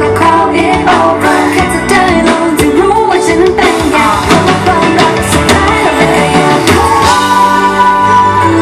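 Pop song played loud through a concert PA, a voice singing a melody over a drum beat, with held chords in the last second or so.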